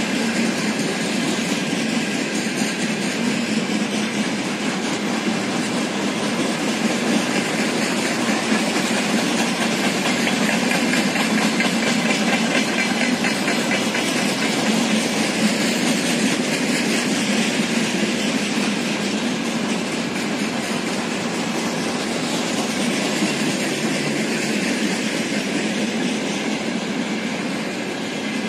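Freight train's covered hopper wagons rolling past, a steady noise of steel wheels running on the rails.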